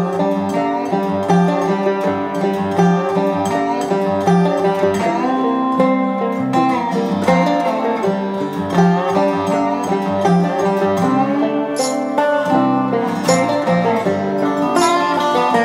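Background music: a plucked-string instrumental of many quick picked notes.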